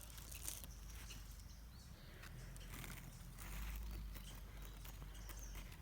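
Quiet outdoor garden ambience: a low rumble on the microphone that swells for about a second in the middle, with soft rustles and a faint bird chirp about three seconds in.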